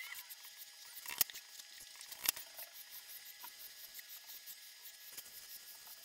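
Faint, quick scratching strokes of a drawing tool rubbing on paper, repeating several times a second. Two sharp clicks stand out, about one and two seconds in.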